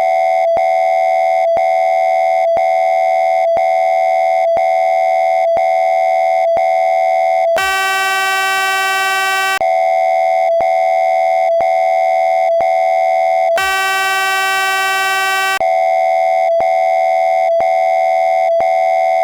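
Synthesized emergency-alert attention tone: a loud steady electronic tone broken by small regular clicks. Twice, about 7 s and 13 s in, it switches for about two seconds to a harsher buzzing tone.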